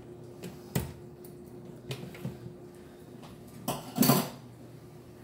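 Kitchen clatter of dishes and utensils being handled: a few light knocks, with a louder clatter about four seconds in.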